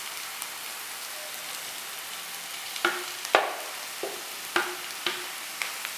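Onions and spice paste frying in a pan with a steady sizzle. From about three seconds in, a spoon knocks against the pan about half a dozen times.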